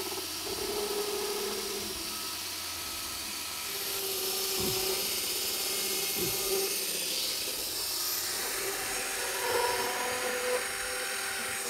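Cordless drill spinning an internal pipe-cutter wheel inside a PVC drainpipe, cutting the pipe off below floor level. A steady whir runs throughout, with two brief knocks midway.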